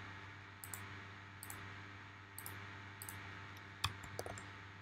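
Faint, scattered clicks of a computer mouse and keyboard, about six in all, with one sharper click a little before four seconds in, over a low steady hum.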